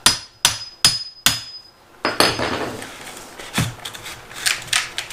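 Four quick hammer strikes on metal, about 0.4 s apart, each with a short metallic ring. Then parts scrape and clank as they are handled.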